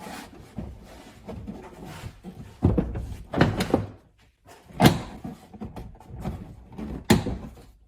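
Plastic retaining clips of a tailgate's inner trim cover snapping into place as the panel is pressed on, several sharp snaps and duller knocks a second or two apart.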